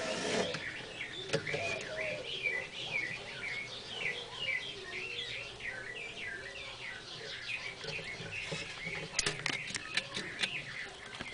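Small birds chirping in a rapid, continuous series of short chirps, with a few sharp clicks near the end.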